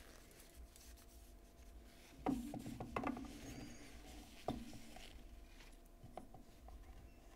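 Faint handling sounds of a disassembled titanium folding knife: light clicks and taps as the parts are handled and a handle scale is laid down, with soft rubbing as a cloth wipes the parts.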